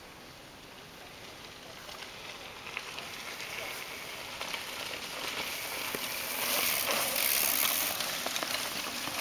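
Mountain bike tyres rolling and crackling over dry fallen leaves on a dirt trail. The hiss grows louder as the bike comes down the slope toward the microphone, and is loudest about seven seconds in as it passes close.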